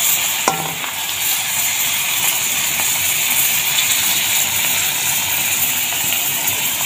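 Hot oil sizzling steadily in a wok as salted dried fish deep-fries, with one light click about half a second in.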